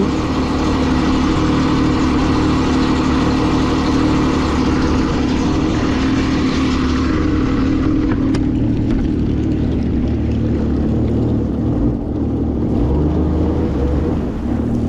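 Boat motor running hard at speed with rushing water and wind noise, on a test run after hull repairs to see whether it leaks. About eight seconds in the rushing noise eases while the engine keeps running steadily.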